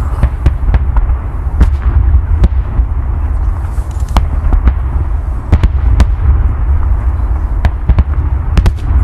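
Fireworks display: a constant deep rumble of shells bursting, with many sharp bangs and pops at irregular intervals throughout.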